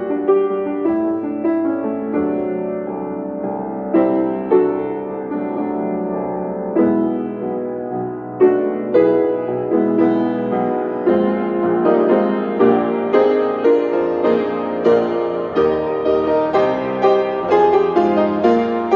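Solo piano playing a slow, gentle piece, the notes coming more often in the second half.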